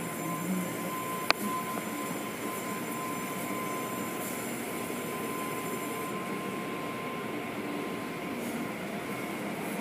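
Automated tunnel car wash running behind glass: a steady, muffled wash of spinning cloth brushes, water spray and machinery. A thin steady tone runs under it and stops about seven seconds in, and a single sharp click comes about a second in.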